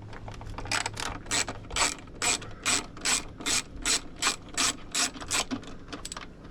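Hand ratchet clicking in an even rhythm, about two and a half clicks a second, as a small screw is backed out of the dash.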